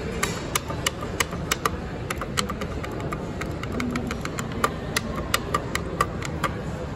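Elevator hall call button pressed over and over in quick succession: a string of sharp clicks, about three a second, over steady background noise.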